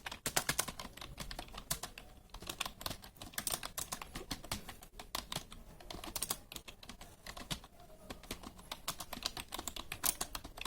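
Fast continuous typing on a computer keyboard, a rapid run of key clicks that pauses briefly a couple of times.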